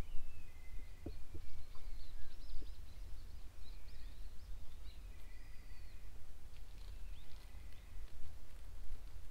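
Small birds chirping and twittering: short high chirps mixed with a few longer falling whistles, fading out near the end, over a steady low rumble.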